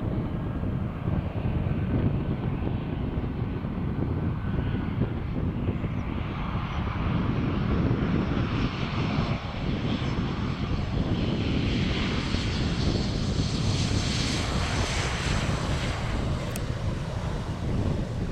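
Embraer ERJ-195 jet's CF34 turbofans on landing: engine noise through short final and touchdown, with a steady low rumble. The sound grows louder and hissier from about eight seconds in as the jet rolls out along the wet runway past the listener.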